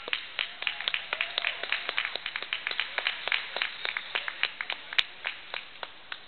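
Scattered hand clapping from a small audience, several irregular claps a second, thinning out and stopping shortly before the end, with one sharper clap about five seconds in.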